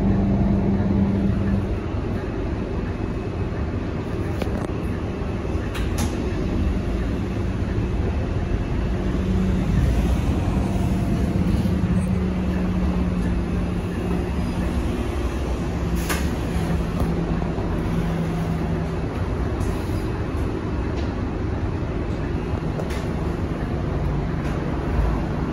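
Scania K230UB city bus heard from inside the cabin while driving: the rear-mounted nine-litre five-cylinder diesel and running gear make a steady drone with a humming tone that shifts in pitch a few times. Occasional sharp clicks and rattles from the cabin fittings.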